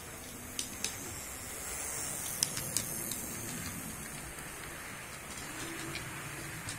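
Model train running past close by on sectional track: the steady whir of the locomotive's motor and wheels, with a few sharp clicks as the coaches pass over the rail joints.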